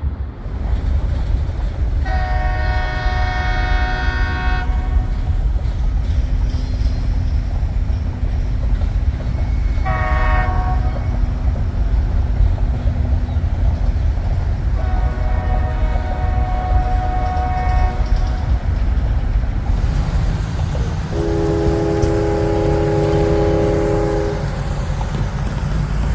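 Distant train horns: a long blast, a short one, another long blast, then a lower-pitched long blast near the end, over a steady low rumble.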